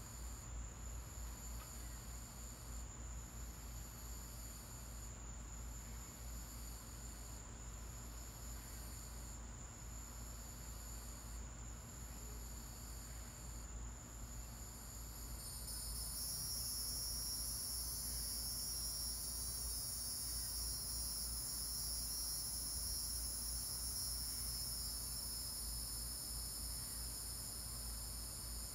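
Insects chirring in a steady high-pitched chorus, pulsing gently at first, then swelling into a louder, continuous drone about halfway through.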